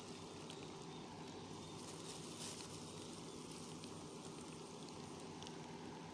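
Heavy rain falling steadily on a reservoir's water and sandy bank: an even hiss with scattered drop ticks, over a low steady hum.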